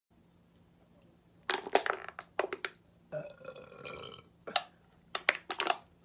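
A woman chugging a drink from a can: sharp gulps in several short runs, with a burp among them.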